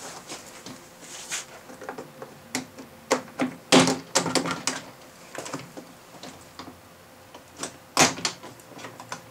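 Plastic retaining clips of a 2016 Chevy Cruze rear door panel snapping loose as the panel is pried and pulled away from the door, with knocks of the panel and tool. The snaps come irregularly, the loudest about four and eight seconds in.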